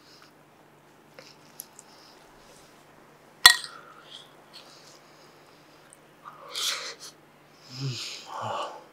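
A single sharp clink of a spoon against a plate about three and a half seconds in, ringing briefly, amid quiet eating. Near the end comes a short rustle and a low murmur.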